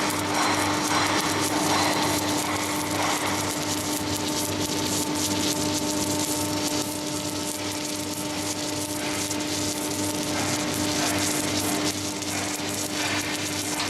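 Automatic welding manipulator at work: a steady electrical hum with a constant crackling hiss of the welding arc.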